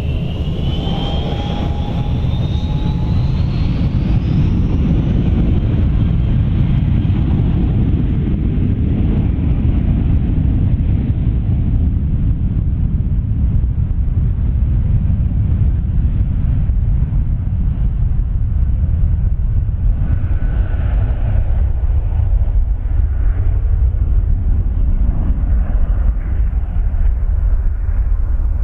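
Airbus A321-231's IAE V2500 turbofan engines spooling up on the runway: a whine rising in pitch over the first few seconds, over a steady, loud low jet rumble that carries on as the airliner rolls away down the runway.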